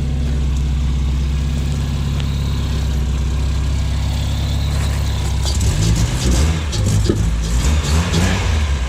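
Honda H22A four-cylinder engine, freshly swapped into a Civic EG6, idling steadily, then revved in a series of quick blips from a little past halfway.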